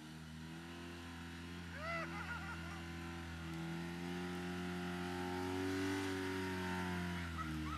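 Side-by-side utility vehicle's engine pulling under load as it drives up out of a mud hole, its pitch rising slowly, then easing off near the end.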